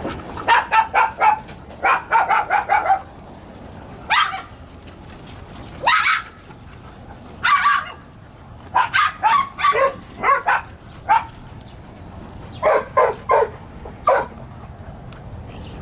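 A dog barking in fairly high-pitched bursts: a quick run of about five barks a second in, another run right after, then single barks a second or two apart, another rapid run about nine seconds in, and three quick barks near the end.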